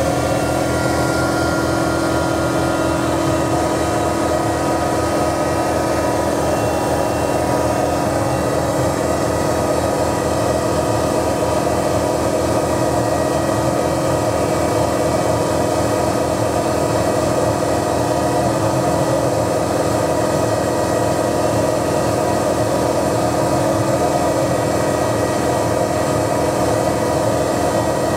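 Denford Novamill CNC milling machine running steadily, its spindle turning a small engraving cutter through a brass name-plate blank. An even machine sound with several held tones and no breaks.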